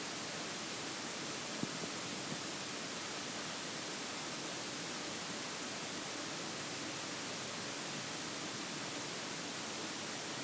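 Steady, even hiss with no distinct event, apart from a faint tick about one and a half seconds in and another just after two seconds.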